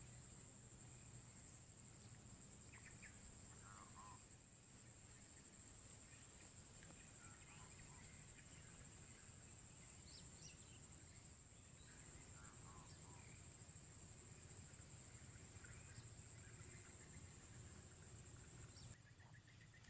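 A steady, high-pitched chorus of insects droning without a break, with short scattered bird chirps over it. The drone drops away abruptly near the end.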